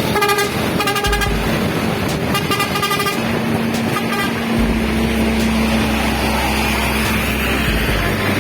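Telolet horns on tour buses sounding several short, pulsing multi-tone bursts in the first three seconds. Then a bus engine runs with a steady low hum and road noise as a bus passes.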